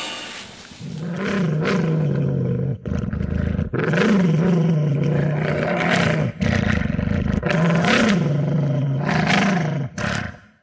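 Three long, loud animal roars, each rising and then falling in pitch before trailing off into a rasp, from a sound effect. A song fades out in the first second.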